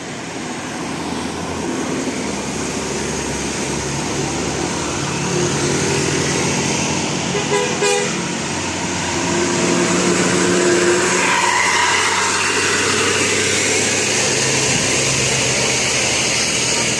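A bus's telolet basuri musical horn playing a tune of held notes at changing pitches, over engine and road noise, growing louder.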